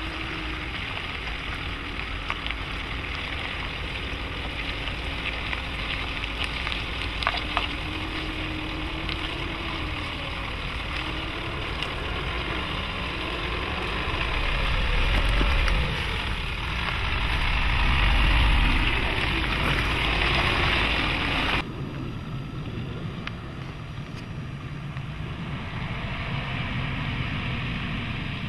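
Nissan Navara NP300's 2.3-litre four-cylinder turbodiesel running as the pickup works over rough off-road ground, its pitch wavering up and down, under heavy wind noise on the microphone. About three-quarters of the way through, the sound drops abruptly to a quieter take of the engine.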